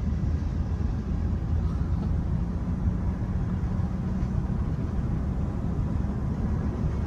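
Freight train of coal hopper cars rolling past: a steady low rumble of wheels on the rails.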